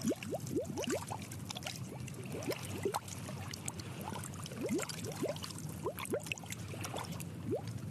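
Underwater bubbling: many short rising bubble blips over a low steady rumble.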